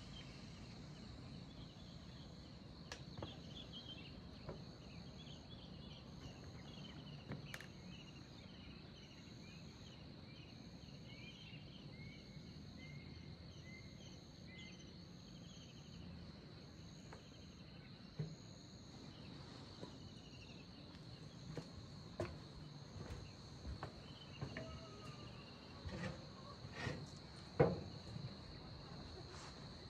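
Insects in the fields: a steady high-pitched drone, with a second insect call pulsing about once a second above it. Short chirps come through in the first half, and several sharp taps and knocks in the second half, the loudest near the end.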